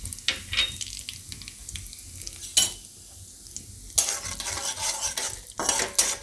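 Carom seeds and cloves sizzling and crackling in hot ghee in a metal kadai. About four seconds in, a metal spatula starts stirring and scraping against the pan, which is louder than the sizzle.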